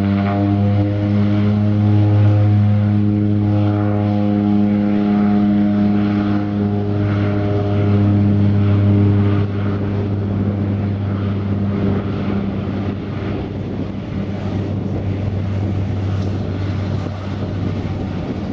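de Havilland Canada DHC-6 Twin Otter's twin PT6A turboprops at takeoff power, a loud, steady, deep propeller drone during the takeoff run. About halfway through it drops in level and turns rougher and noisier as the floatplane pulls away and lifts off.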